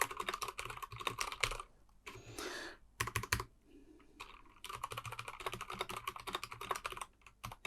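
Typing on a Durgod Taurus K310 mechanical keyboard with tactile Cherry MX Brown switches: quick runs of keystrokes, with a pause of about a second before the typing picks up again.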